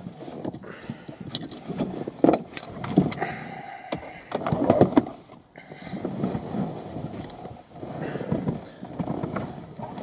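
A person shifting across a car's front seats from the driver's side into the passenger seat: irregular rustling and scraping of clothing on the seats, with a few knocks.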